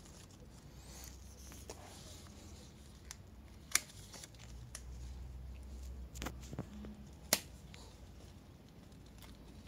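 Bypass pruning shears snipping through lemon fruit stalks: two sharp clicks, about four seconds in and again about seven seconds in, with softer clicks and rustling of leaves and fruit being handled in between.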